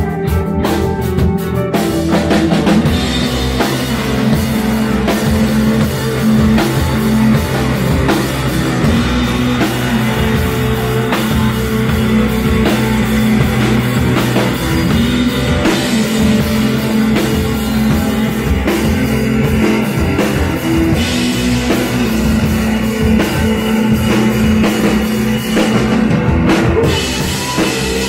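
A live rock band playing: a drum kit keeping a steady beat under electric bass and keyboard.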